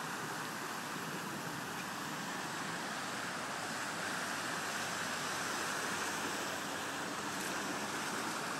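Cars driving through shallow floodwater on a street, their tyres making a steady rushing, splashing hiss that swells a little in the middle as one passes close.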